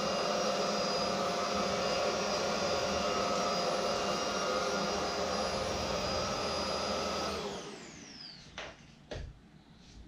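Roidmi F8 cordless stick vacuum running steadily in its default power mode. About seven seconds in it is switched off, and its motor whine falls away as it spins down, followed by a couple of soft knocks.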